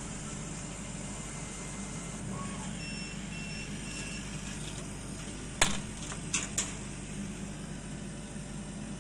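Laser cutter's steady machine hum with three short high beeps about three seconds in, signalling the job is finished. A sharp click and then two lighter clicks follow as the cut acrylic piece is handled on the metal honeycomb bed.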